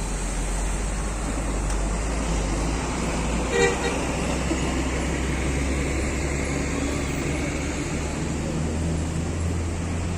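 Bus engines running at idle, a steady low rumble under traffic noise, with one brief horn toot about three and a half seconds in.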